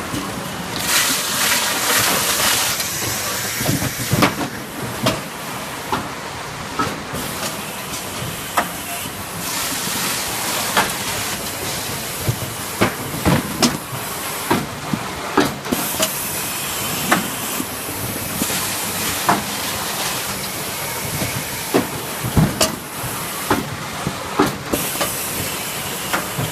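Automatic bottle filling and packing line machinery running: a steady hiss with frequent sharp clacks and knocks, and stretches of brighter hissing.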